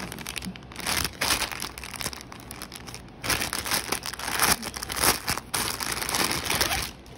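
Thin plastic packaging bags crinkling in several bursts as hands handle and open them.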